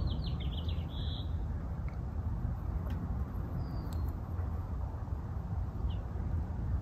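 Outdoor ambience: a steady low rumble with faint high bird chirps, a quick run of them in the first second or so and a few single calls later.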